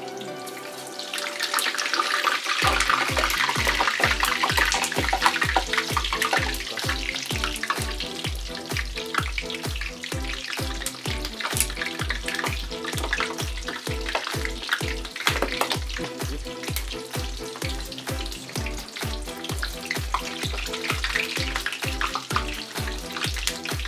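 Risoles deep-frying in a wok of hot oil, a steady sizzle. Background music with a steady beat comes in about three seconds in.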